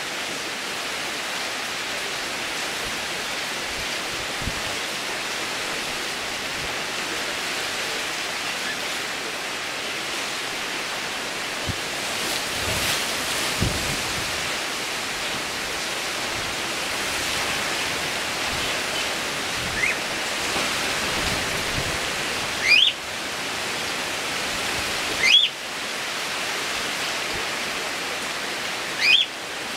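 Typhoon wind and heavy rain making a steady rushing noise. In the second half there are four short rising squeaks, the last three the loudest sounds.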